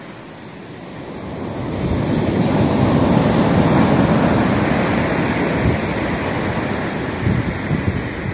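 Rough ocean surf: a wave breaks and washes up a sandy beach, its rush swelling from about a second in to a peak around three to four seconds, then slowly falling away. Gusts of wind buffet the microphone near the end.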